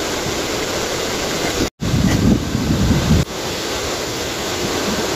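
Wind buffeting the microphone: a steady rushing noise that cuts out for an instant about two seconds in, then blusters more heavily in the low end for about a second and a half before settling back.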